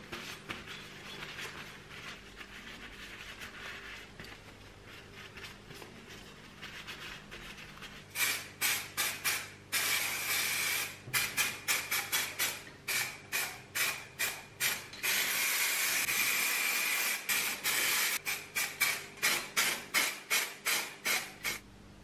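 Aerosol spray paint can spraying the grinder's metal parts: many short hissing bursts and a few longer passes, each with a thin whistle over the hiss, after several seconds of fainter hiss and clicks.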